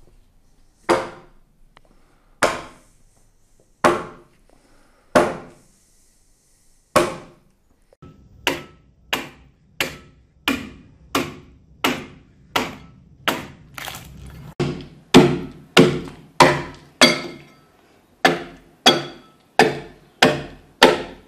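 Axe chopping into the end of an oak trunk, cutting away the sapwood to square it. The first few strokes are slow and spaced, then from about eight seconds in the blows come quicker and steadier, about three every two seconds.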